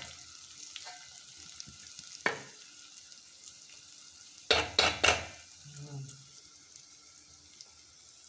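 Metal spoon scraping around an aluminium pot of cooked capsicum and potato curry, over a faint steady sizzle. One scrape about two seconds in, then three loud scrapes in quick succession around the middle.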